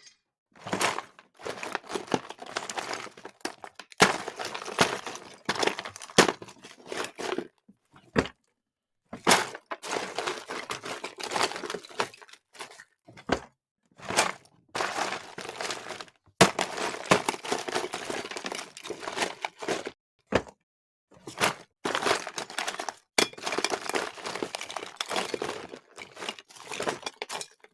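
Hand rummaging through a junk drawer: assorted small objects clattering, rattling and knocking against each other in bursts of a second or a few seconds, with brief pauses between and the odd sharper knock.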